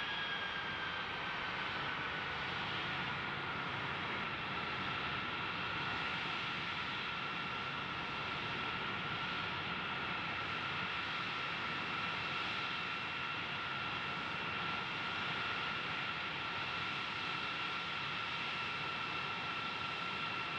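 Boeing RC-135W Rivet Joint's four CFM56 turbofan engines running at taxi power: a steady rushing noise with a high turbine whine that drops a little in pitch over the first four seconds, then holds.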